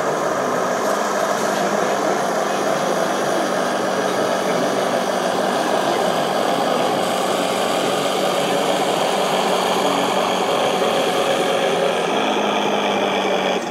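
Large radio-controlled model tank driving along, giving a steady engine-like running sound.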